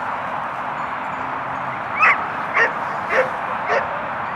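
An animal calling repeatedly: four short calls about half a second apart, starting about two seconds in, over a steady rushing background noise.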